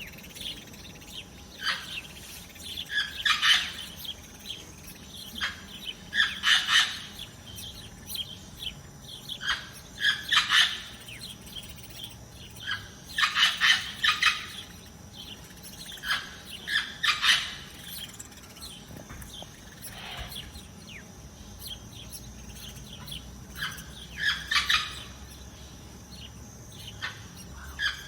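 Small birds chirping and calling, in clusters of quick high notes every few seconds over a faint steady background hiss.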